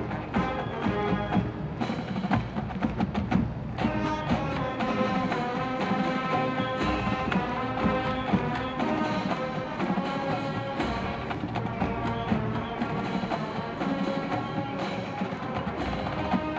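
Marching band playing on the field: full wind section carrying the tune over a busy, steady drumline beat.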